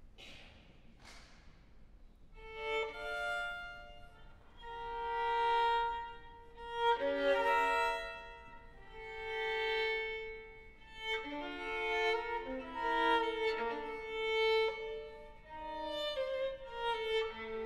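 Unaccompanied solo violin playing slow, sustained phrases, often with two notes sounding at once. Each phrase swells and fades. The playing begins about two seconds in.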